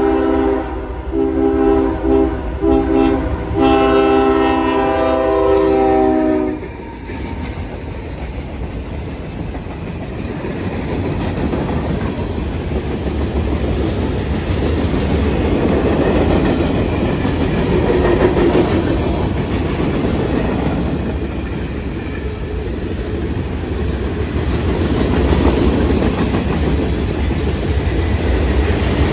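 A Nathan K5HL five-chime air horn on a CSX ET44AH locomotive sounds several blasts with short gaps between them, ending in a long blast that cuts off about seven seconds in. After that a freight train passes with a steady rumble and the clatter of wheels over the rail joints.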